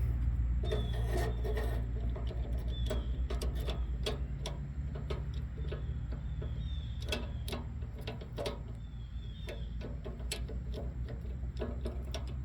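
Irregular light clicks and taps of metal parts being handled and fitted on a commercial fryer, over a steady low hum.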